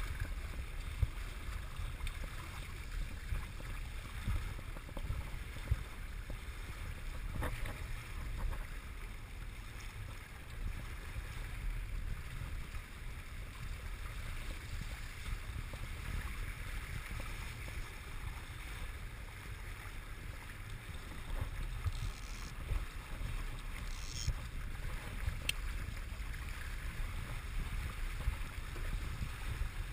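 Wind buffeting the camera microphone over water rushing along the hull of a Hobie Wave catamaran under sail, with a few light knocks.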